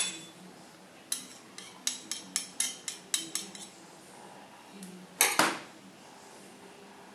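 A metal spoon clinking lightly against a porcelain egg cup and eggshell in a quick run of about ten small taps while herb butter is spooned into a soft-boiled egg, then a short, louder clatter about five seconds in.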